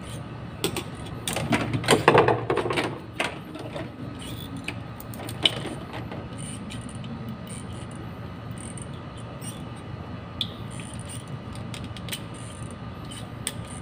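Clicks, taps and rustling of jumper wires being handled and fitted to relay screw terminals. The handling is busiest in the first three seconds, then thins to a few scattered ticks over a faint steady hum.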